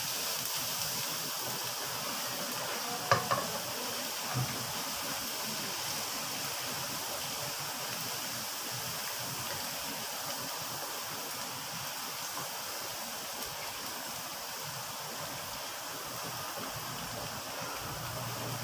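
Minced garlic sizzling steadily in hot oil in a nonstick wok as it is stirred with a wooden spatula, with a few sharp knocks about three seconds in.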